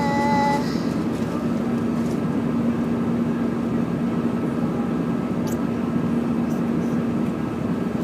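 Airliner cabin noise in flight: steady engine and airflow noise with a steady low hum.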